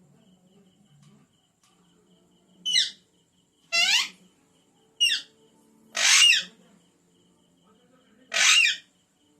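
Pet parrot giving five short, loud, harsh calls, each falling in pitch. The calls come about a second apart, with a longer pause before the last.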